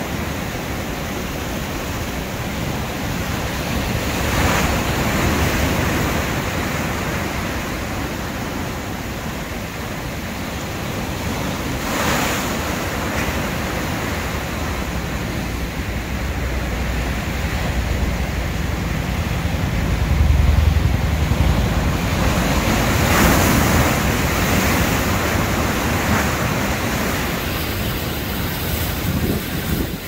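Heavy ocean surf: big waves breaking and crashing into foam in a continuous roar of water, which swells each time a wave breaks, several times over.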